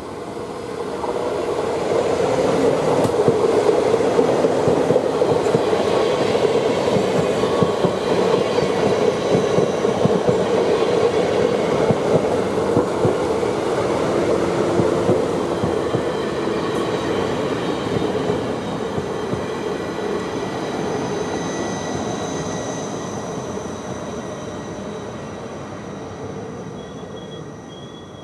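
NS ICM 'Koploper' electric intercity train passing along the platform: a steady rumble of wheels on the rails with a faint clatter. It builds over the first two seconds and fades away over the last several as the rear carriages pull off.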